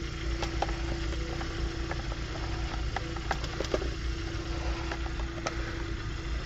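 Car engine idling steadily, with scattered light clicks and knocks from plugs and fittings being handled.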